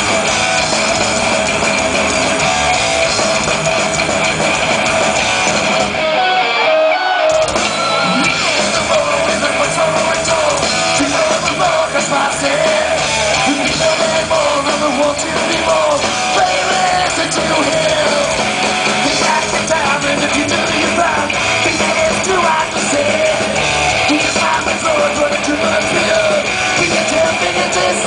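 Thrash metal band playing live: distorted electric guitars, drums and vocals, loud and heard from within the crowd. About six seconds in there is a short break of a second or so where the low end drops away before the full band comes back.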